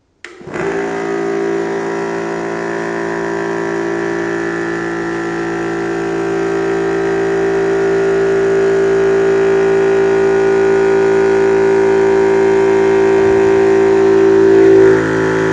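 Yong Heng 300 bar water-cooled PCP high-pressure air compressor switched on just after the start, then running steadily as it pressurises a small air cylinder fitted with a regulator. Its sound grows gradually louder, and its tone shifts just before the end.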